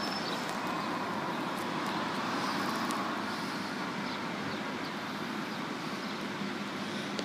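Steady distant engine rumble of a Class 153 single-car diesel railcar pulling away from the station towards the closed level crossing.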